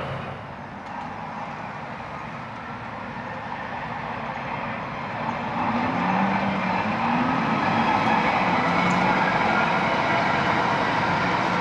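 Freightliner Class 70 diesel locomotive 70006 hauling a container train, growing louder as it approaches. Its engine note comes through clearly about six seconds in and stays loud as it passes, over the rumble of the wagons.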